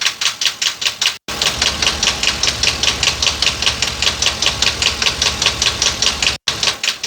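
A 2022 Ford F-59's 7.3 L gasoline V8 ticking at cylinder 3, heard through a screwdriver pressed against the engine: a sharp, even clacking about five times a second. The owner rules out rod knock, a valve or a piston and thinks it could be the camshaft. The truck also logs a P0300 random-misfire code, with cylinder 3 misfiring most.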